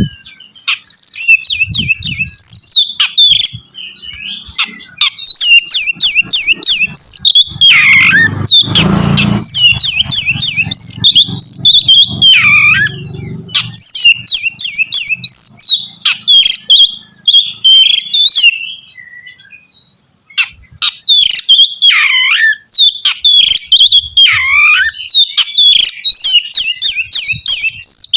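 Oriental magpie-robin (kacer) singing loudly in fast, varied phrases of rapid chattering trills and whistles, with a few long falling whistled notes, broken by short pauses. A brief rushing noise cuts across the song about nine seconds in.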